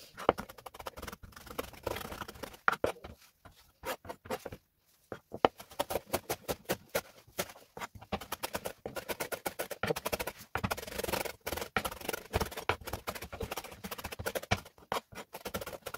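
A kitchen knife chopping fresh coriander leaves on a cutting board: rapid, repeated taps of the blade striking the board, with a short pause about four seconds in.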